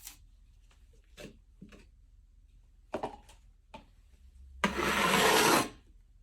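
Handling noises: a few light knocks and clicks, then about a second of loud, dense noise, the loudest sound here.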